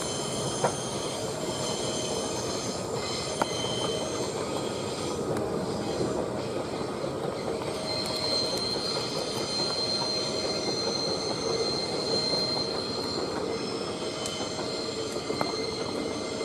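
Passenger train hauled by a diesel-electric locomotive running past, a steady rumble of wheels on rails with a thin, high, steady wheel squeal for several seconds in the middle.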